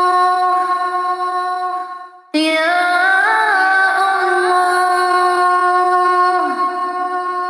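A voice singing long, held notes in a slow melodic chant. One note fades out about two seconds in; the next starts with an upward slide, wavers briefly through a small ornament, then holds and fades near the end.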